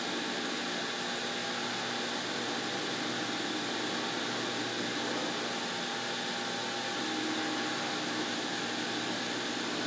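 Router table running with its shop-vacuum dust extraction: a steady machine whine over a rush of air, a little louder for a moment near the end as the frame is fed past the bit.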